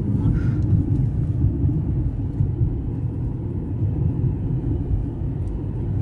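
Steady low rumble of road and engine noise inside a moving car's cabin.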